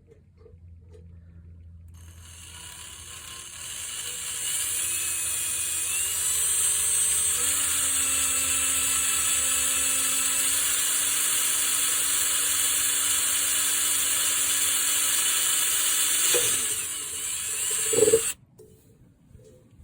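Electric drill boring a stop hole through the edge of a cracked Zildjian A Custom crash cymbal, just past the end of the crack, to keep it from spreading. A high grinding hiss from the bit in the bronze rises a couple of seconds in, and a motor whine steps up in pitch before holding steady. It stops suddenly near the end.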